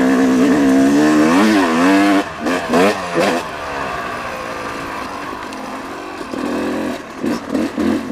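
Yamaha YZ250X two-stroke single-cylinder dirt bike engine being ridden, its pitch rising and falling with the throttle. It is loud through the first two seconds, then gives a few short throttle blips, runs quieter and steadier through the middle, and blips again near the end.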